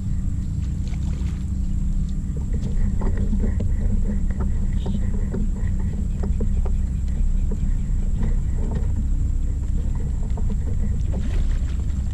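Steady low rumble and hum picked up through an old GoPro's microphone, with a faint constant high whine and scattered light clicks and taps.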